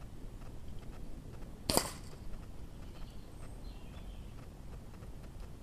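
A single sharp shot from a .22 Weihrauch HW97K spring-piston air rifle about two seconds in, with a brief ring after it, as the pellet knocks one of the small hanging targets off its wire.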